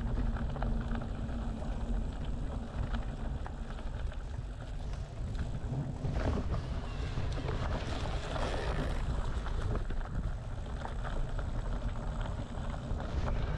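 Wind buffeting the microphone: a steady low rumble with scattered light clicks, and a brief broader rush of noise about six to nine seconds in.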